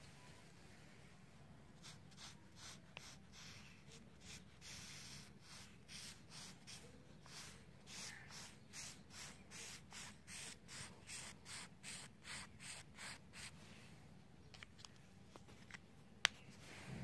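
Pink highlighter scribbling back and forth on paper: a faint, rhythmic scratch about twice a second that stops a few seconds before the end. A single sharp click comes near the end.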